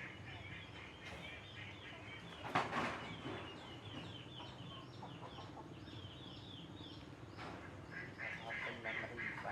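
Repeated short, high-pitched animal calls, many falling in pitch, at about two a second, with a brief noisy rustle about two and a half seconds in and a denser run of calls near the end.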